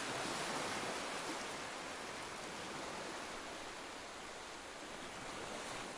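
A steady, even rushing hiss with no tones or distinct events, easing off slowly.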